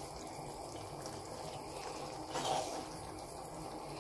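Grated beetroot boiling in milk in an open pan, a steady faint bubbling as the milk reduces and is absorbed into the halwa, with a short louder swish about two and a half seconds in.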